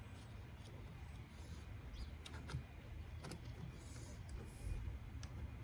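Faint scattered clicks and light knocks of small chainsaw carburetor parts being handled and fitted by hand, over a low background hum.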